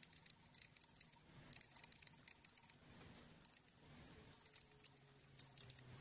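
Faint small clicks and ticks of a Honda motorcycle's front brake light switch, a small plastic housing with metal contacts, being handled and turned in the fingers.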